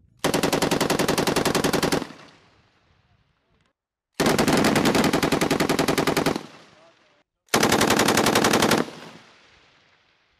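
M240B medium machine gun firing three bursts of rapid automatic fire, each about one and a half to two seconds long, with the echo fading after each burst.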